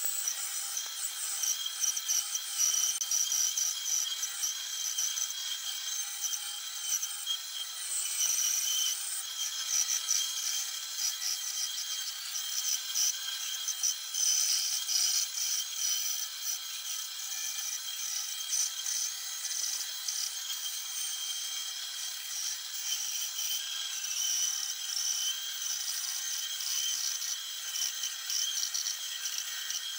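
Benchtop bandsaw running and cutting a curved outline through a thick wood block: a steady high-pitched whir and rasp of the blade in the wood.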